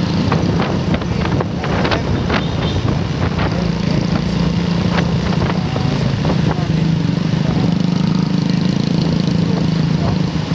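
Motorcycle engine running steadily at low revs in traffic, with scattered clicks and rattles over it.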